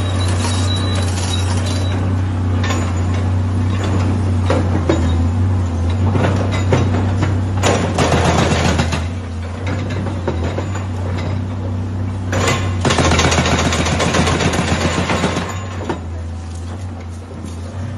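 Excavator demolishing a concrete-and-brick house: the machine's engine hums steadily underneath while concrete slabs and masonry crash and clatter down as rubble. The crashing comes in bouts, the longest near the middle and again later on.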